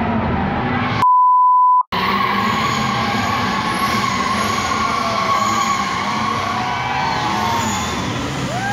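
Stunt cars drifting on a paved arena: engines running and tyres squealing in a steady roar, the squeal pitch rising and falling near the end. About a second in, a steady beep tone briefly blanks out everything else.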